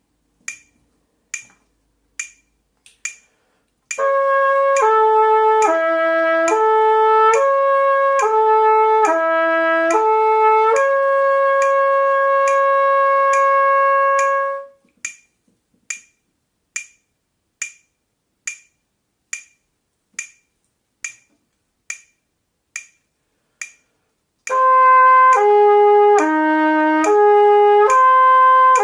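Trumpet playing a lip-slur flexibility exercise: quarter notes slurred up and down between three natural harmonics on one valve combination, ending on a long held note, over metronome clicks at 70 beats a minute. The trumpet comes in about four seconds in and plays for about ten seconds, then only the metronome clicks for about ten seconds, and the trumpet starts the next exercise near the end.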